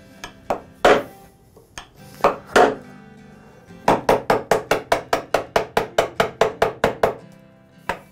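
Wood chisel being struck as it cuts into the hardwood bench top: a few separate blows, then a quick even run of about eighteen taps, some six a second, over about three seconds. The chisel is trimming the vise's recess to sit just below flush.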